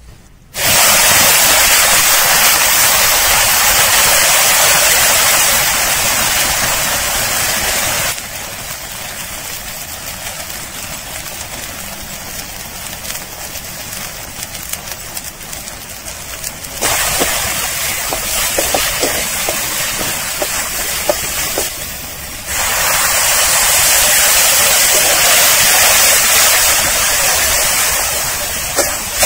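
A paste sizzling loudly in hot oil in a steel kadai, the sizzle starting suddenly about half a second in as the paste hits the oil. It dies down and swells again a few times as spices go in and the mixture is stirred, with a few spatula scrapes.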